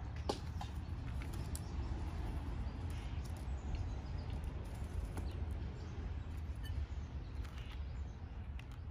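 Outdoor backyard ambience: a steady low rumble with a few faint, scattered clicks and taps.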